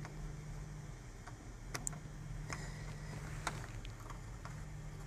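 A few faint, irregular clicks and taps of a soldering iron and small tools on a circuit board while the legs of a newly fitted power IC are soldered, over a faint steady low hum.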